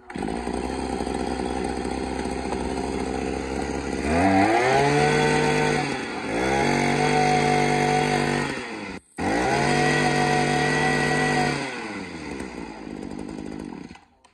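Echo 22cc two-stroke brush cutter engine idling, then revved up three times, each rev climbing in pitch and held for a second or two before dropping back to idle.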